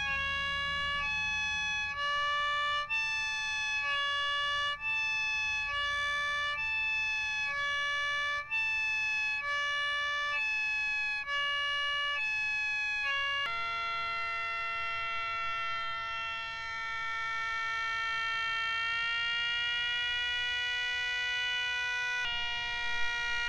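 3D-printed miniature dual-rotor siren modelled on the 500DHTT, sounding a two-note chord. For about the first 13 seconds it switches between two chords about once a second as its horn ends are covered and uncovered by hand. Then it holds one steady chord whose pitch creeps slightly upward, the pitch drift the builder names as a flaw still to refine.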